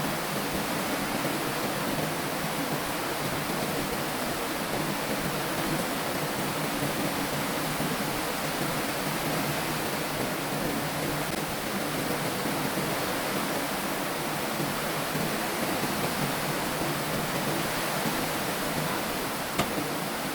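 Heavy rain falling in a steady, even downpour, with one short click near the end.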